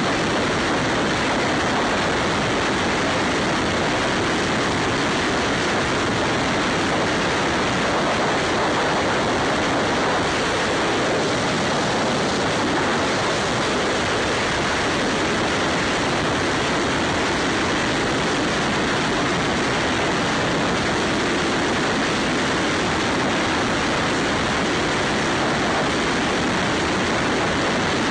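Steady rush of wind and road noise from a Ducati Scrambler motorcycle riding at highway speed, with no distinct engine note standing out.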